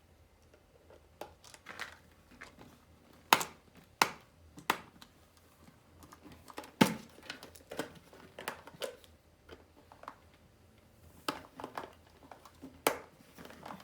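Scattered sharp clicks and knocks of hard plastic being handled, as a screwdriver works at a screw in the plastic casing of a small battery-powered robot vacuum. The screw is not going in.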